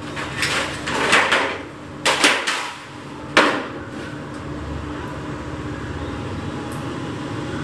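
Several knocks and clatters in the first few seconds as a baking tray and other kitchen things are handled and set down on a table, then only a steady low hum.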